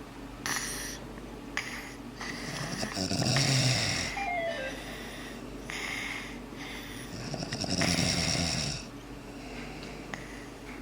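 A sleeping father and toddler snoring while both are sick. Two long, loud snores come about four seconds apart, with softer breaths between them, and a short falling whistle follows right after the first.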